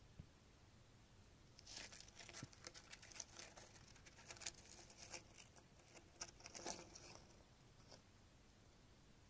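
Faint rustling and crackling of dry grass and leaves as a mouse moves through its nest material, in uneven bursts from about a second and a half in until about seven seconds in.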